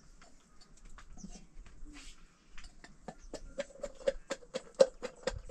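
A run of sharp, evenly spaced knocks, about four a second, starting about halfway through and growing louder toward the end, the louder ones with a short ringing note; a few faint scattered clicks come before it.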